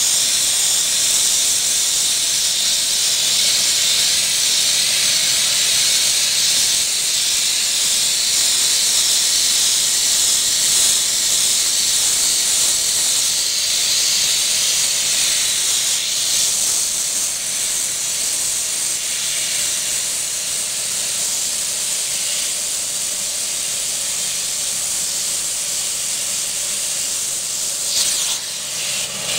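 Pressure sandblaster blasting a sheet-metal truck body panel: a loud, steady hiss of compressed air and abrasive from the nozzle, wavering near the end.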